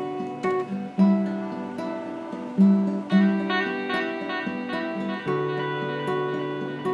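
Instrumental music on acoustic guitar: picked notes one after another, each ringing on into the next.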